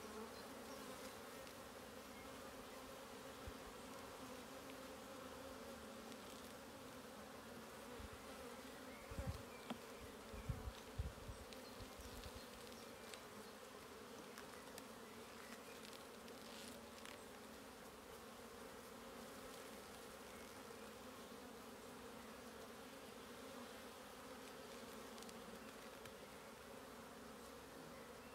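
Honeybee colony humming steadily from an opened hive as its comb frames are handled. A few low bumps come about ten seconds in.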